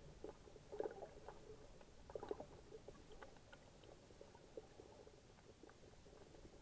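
Faint, muffled underwater sound heard through an action camera's waterproof case: a low hiss with scattered soft crackles and clicks, in small clusters about a second in and again just after two seconds in.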